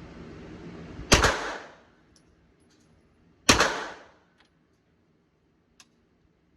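Two gunshots about two and a half seconds apart, each loud and sharp with a short ringing tail.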